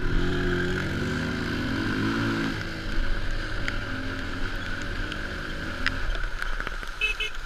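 Quad bike (ATV) engine running under throttle on a muddy trail, louder for the first two or three seconds and then lower, with a steady wind hiss and scattered small ticks of spattering mud.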